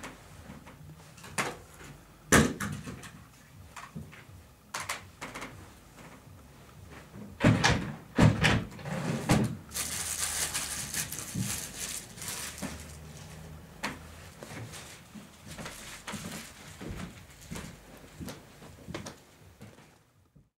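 Scattered knocks, bumps and rustling of someone moving about and handling things in a small room, with a louder hissing rustle around ten to twelve seconds in.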